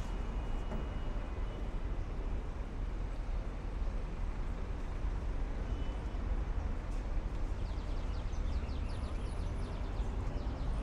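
City street ambience with a steady traffic rumble. A quick run of light ticks comes near the end.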